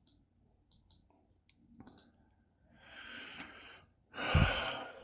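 A few soft clicks from a computer mouse, then a man breathes in and lets out a long sigh close to the microphone, the out-breath blowing on the mic; the sigh is the loudest sound.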